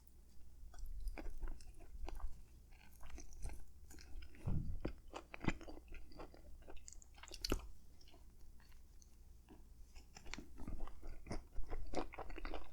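Person chewing a soft, soggy turkey hoagie with mashed potatoes, gravy and cranberry sauce: wet mouth clicks and smacks throughout, with a few louder bites about four, five and seven seconds in.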